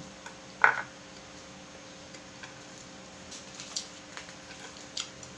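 Person chewing pancit canton noodles, with a few light clicks and one short louder noise about half a second in.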